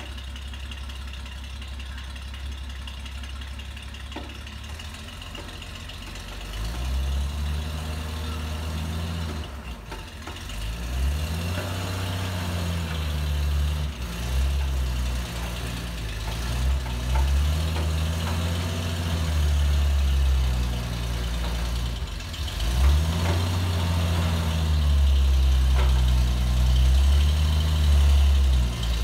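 A 1936 Chevrolet truck's engine idling steadily, then, from about six seconds in, revved up and eased back several times as the truck creeps forward. It gets louder toward the end as it comes nearer.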